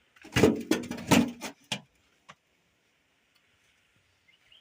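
Bricks clacking against each other as they are stacked into a wheelbarrow: a quick run of hard knocks in the first two seconds, then one more single knock.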